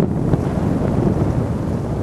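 Constant wind blowing over the camera microphone, a steady low rush of noise.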